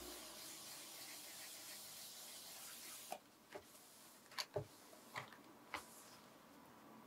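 Waterproof sandpaper on a hand sanding block rubbing over a black lacquer guitar body, a faint steady hiss: wet sanding with soapy water to level orange-peel texture in the finish. The rubbing stops about three seconds in, and a handful of light clicks and taps follow as the surface is wiped with a cloth.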